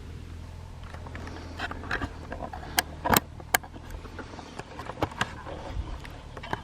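A low steady rumble with rustling and a few sharp clicks, the loudest three close together in the middle.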